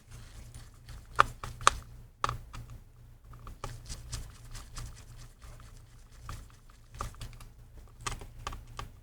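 Scattered small clicks and taps of a T4 Torx screwdriver and hands working on the opened MacBook Pro's internal screws, with two sharper clicks a little over a second in, over a steady low hum.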